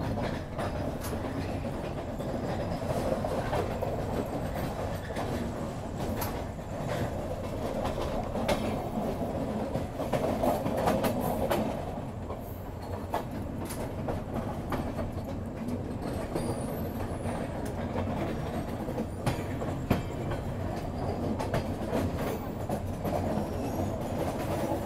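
Passenger train's coach wheels running on the track: a steady rumble with irregular clicks and clacks as the wheels cross rail joints and points coming into a station.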